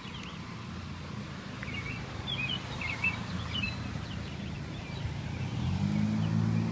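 Small birds chirping in short calls over steady low outdoor noise; near the end a vehicle engine's low hum comes in and grows louder.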